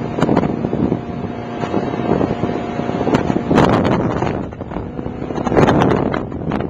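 Motorboat under way: a steady engine drone with the rush of water along the hull and wind on the microphone, surging louder twice as the boat hits the chop.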